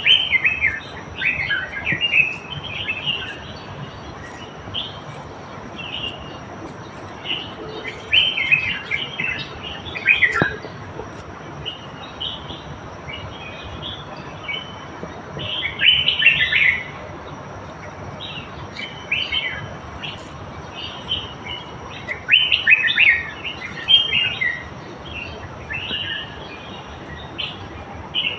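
Small songbirds chirping and singing in short bursts of quick notes every few seconds, over a faint steady background hiss and a thin high whine.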